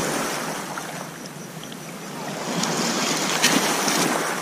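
Small sea waves washing onto a pebble beach, with wind on the microphone; the surf grows louder about halfway through.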